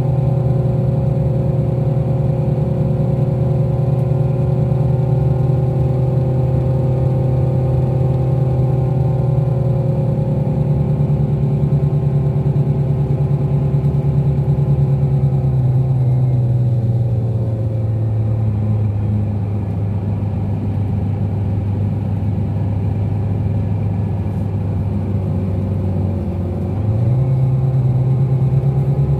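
Rear-mounted Scania DC13 diesel engine of a Scania K360 coach, heard from inside the coach as it drives. The engine runs steadily under load, its note eases lower and quieter about halfway through, then jumps back up near the end.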